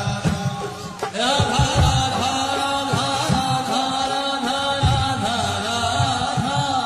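Devotional Krishna bhajan music: chanted vocals over drums. A new sung phrase comes in about a second in, after a brief dip.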